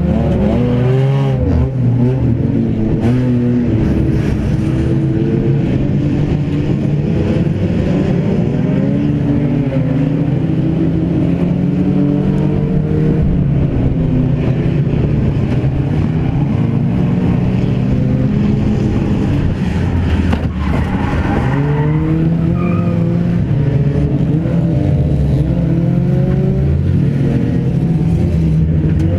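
Race car's engine heard from inside its stripped-out cabin, revving up and down over and over as the throttle is opened and lifted around the track.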